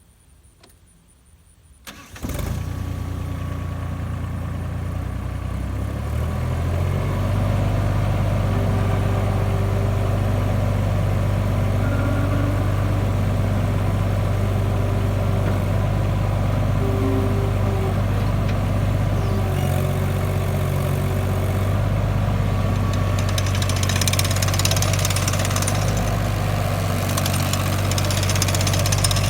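Engine of a 30 hp Terex PT-30 compact track loader starting about two seconds in, then running steadily. Its speed rises over the next few seconds before it settles.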